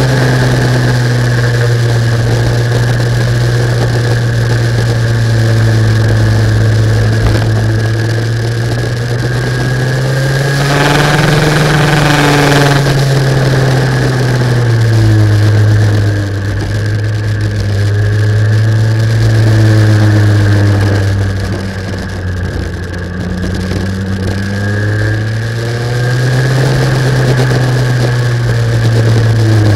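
Racing kart engine heard onboard, its pitch rising as it accelerates and dropping as it slows, several times over. A burst of harsh noise about eleven seconds in lasts a couple of seconds.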